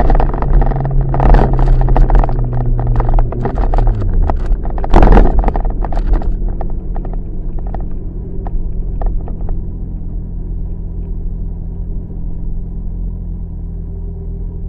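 A car engine running under road rumble. Its pitch falls about four seconds in as the car slows, with a loud burst of noise just after. It then runs steady and quieter.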